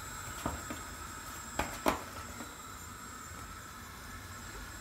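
Quiet kitchen room tone with a few faint soft taps, one about half a second in and two close together near two seconds.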